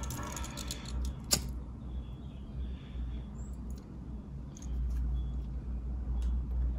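Small clicks and taps of wires and tools being handled at a soldering workbench, with one sharp click about a second and a half in, over a steady low hum.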